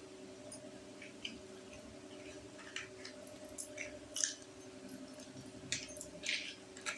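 Small plastic toy kitchen pieces being handled, with irregular light clicks, taps and crinkles, the busiest about halfway through and near the end. A steady low hum runs underneath.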